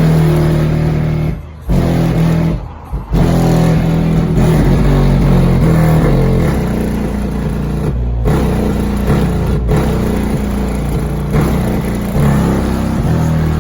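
Bass-heavy music played loud through two Skar ZVX subwoofers on a 3000-watt Audiopipe amplifier in a car. The low notes shift in pitch and briefly cut out a few times.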